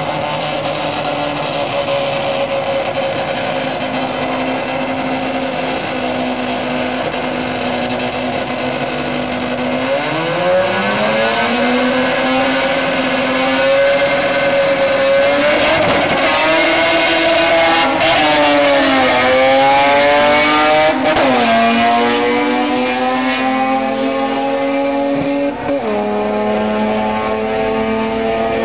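Two small cars' engines idling at a drag strip start line, then revved up and held about a third of the way in. They then launch and pull away, the pitch climbing and dropping suddenly at each gear shift, several times.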